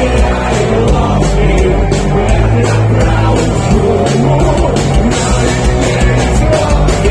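Rock band playing a punk-rock song live, with guitar, bass and drums keeping a steady beat.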